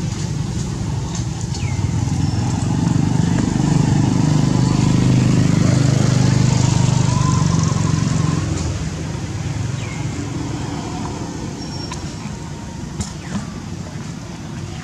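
A motor vehicle passing by: a low rumble swells for several seconds, is loudest about halfway through, then fades. A few short, high, falling chirps sound over it.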